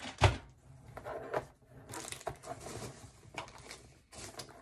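Packaging being handled: one sharp knock near the start, then intermittent light rustling and clicks of bags being moved about.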